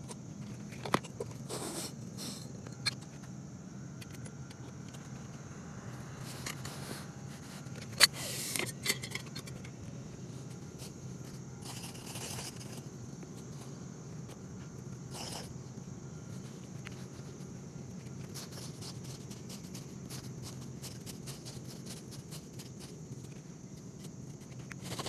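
Faint scraping and a few sharp clicks of a metal hand tool working soil into an old hole on a putting green, over a low steady hum.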